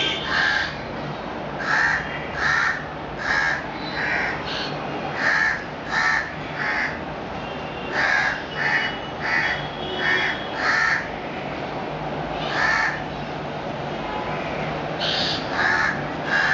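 Juvenile black-billed koel, about 45 days old and raised by crows, giving short crow-like caws in imitation of its crow foster parents. The caws come about every 0.7 s in runs of two to five, with pauses between the runs.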